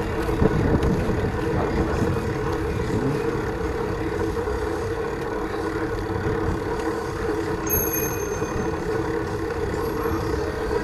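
Rumbling wind and riding noise from a moving bicycle, under a steady low hum. A faint high thin tone sounds for about a second near the middle.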